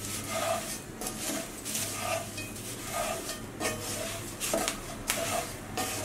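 A spatula stirs dry poha flakes in a cast iron pot, scraping the metal and rustling the flakes in repeated strokes about once or twice a second.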